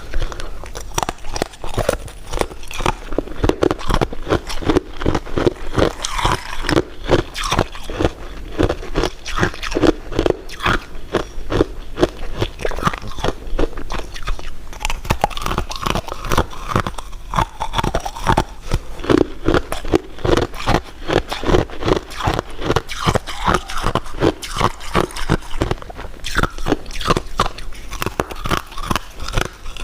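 Close-miked eating sounds: continuous crunching and chewing of sweets, several bites and chews a second, without pause.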